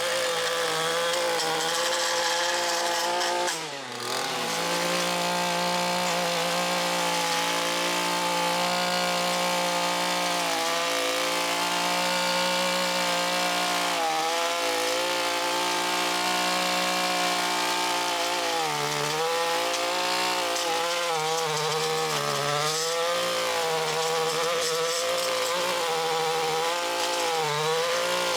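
Chainsaw running at high speed while cutting tree limbs, its pitch dipping several times as it bogs under load. About four seconds in it drops almost to idle and revs back up.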